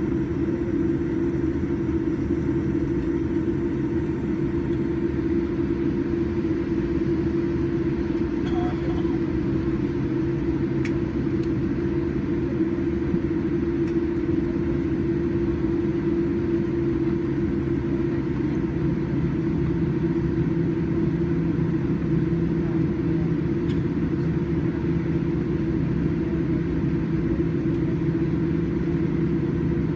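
Steady cabin noise aboard a Boeing 787-9 Dreamliner taxiing: a low rumble under a constant hum from the engines at taxi power.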